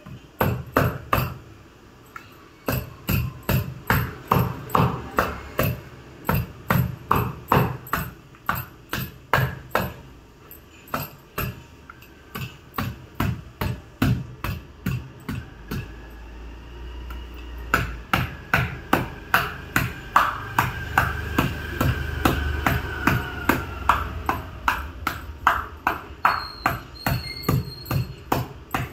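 A hammer repeatedly striking the handle of a tool driven into a green tender coconut, about two blows a second with a few short pauses. It is punching a hole through the thick husk to get at the coconut water.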